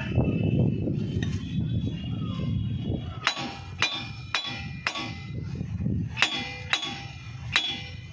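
Hammer striking the steel rear brake drum of a Mahindra Xylo seven times, each blow ringing metallically: four quick blows about half a second apart, then three more, knocking the drum loose from the hub to get at the brake shoes.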